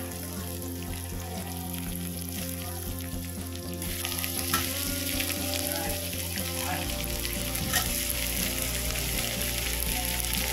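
Sliced onion, garlic and tomato sizzling in hot oil in a wok while being stirred with a steel spatula. The sizzle grows louder about four seconds in, and the spatula clinks sharply against the pan twice.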